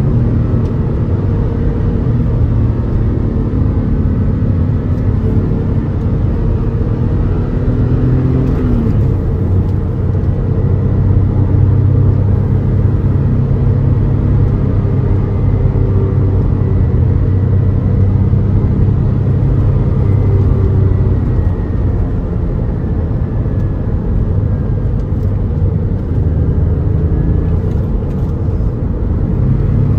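Porsche 911 Carrera 4S flat-six engine running steadily under way, heard from inside the cabin over road noise. The engine note changes about nine seconds in.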